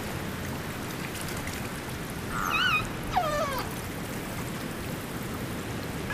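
Killer whale calls heard underwater over a steady hiss of water: a short wavering call about halfway through, followed at once by a longer call that falls in pitch.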